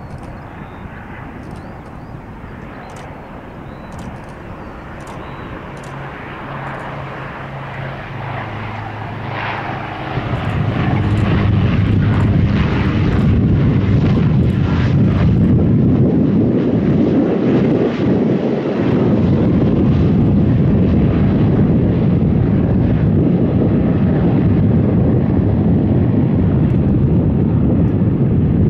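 A large aircraft's engines grow louder over about ten seconds, then run loud and steady.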